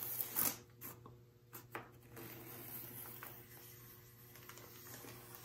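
A bare utility-knife blade slicing brown paper along the edge of a wooden picture frame: a faint scratchy cutting sound, with a few sharper scrapes and clicks in the first two seconds.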